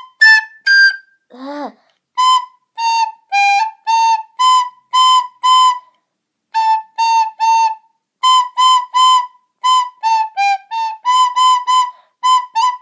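A recorder played as a simple tune of short, separately tongued notes moving by small steps in a high register, about two to three notes a second, with a pause of about a second midway.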